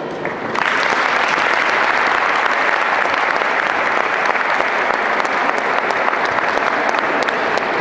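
Audience applauding, the clapping starting suddenly about half a second in and going on steadily.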